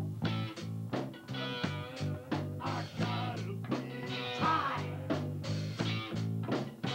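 Rock band playing live in rehearsal: drums keeping a steady beat of about three hits a second under bass and electric guitar.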